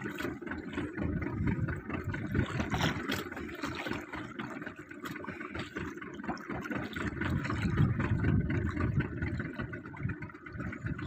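Small fishing boat's inboard engine idling with a steady low rumble, its level wavering throughout.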